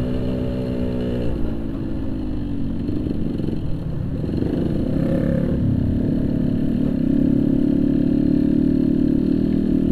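Yamaha RX-King 135cc single-cylinder two-stroke motorcycle running through a Boban aftermarket exhaust while riding. The engine note drops about a second in, wavers for a few seconds, then climbs and holds steady.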